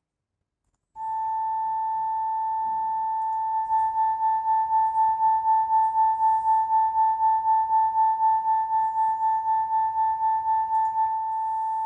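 Two sine tones from online tone generators, 884 Hz and 880 Hz. A single steady tone starts about a second in; a few seconds later the second joins and the pair beat at four pulses a second, the 4 Hz difference between them. Near the end one stops and a single steady tone remains.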